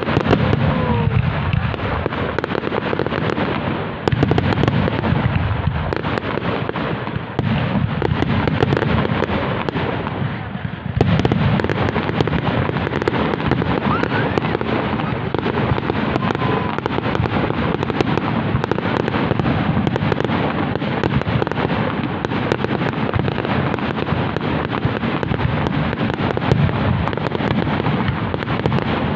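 Aerial fireworks display going off in a dense, unbroken run of bangs and crackling, with a few short whistles.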